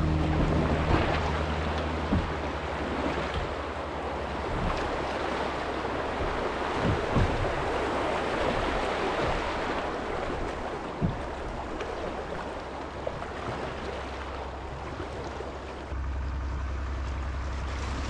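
Rushing water of a shallow river rapid around a canoe running through it, with a steady low wind rumble on the microphone and a few short knocks.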